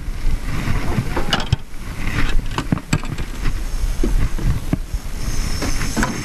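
Wind rumbling on the microphone, with a string of sharp knocks and clicks from movement and gear handling in a metal fishing boat. A faint high hiss comes in about five seconds in.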